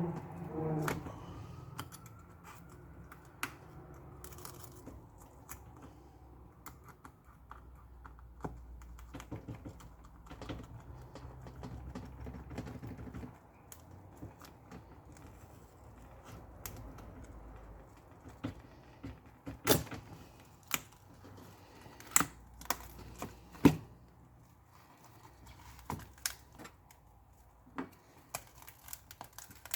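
Small tools prying and picking a cracked iPad touchscreen glass off its frame: scattered light clicks and taps, with a few sharper, louder snaps about two-thirds of the way through.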